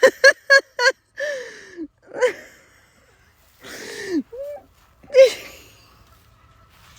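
A person laughing hard: a quick run of short laughs, then drawn-out laughs that fall in pitch and breathless gasps for air between them.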